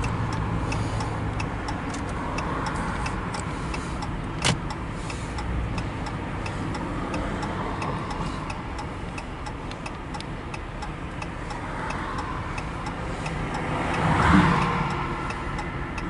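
Car cabin noise while driving, with a steady run of light ticks about twice a second. There is one sharper click about four and a half seconds in, and the noise swells briefly near the end.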